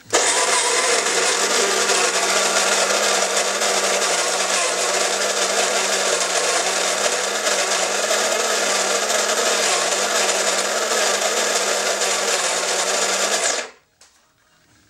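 Wilfa CG-110S electric coffee grinder grinding coffee beans: a steady motor hum under a gritty grinding noise, starting the moment its button is pressed and cutting off suddenly after about 13 seconds.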